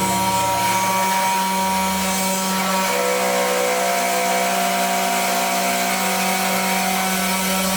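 Small desktop CNC router's spindle running steadily while its bit cuts into wood, with a continuous whine.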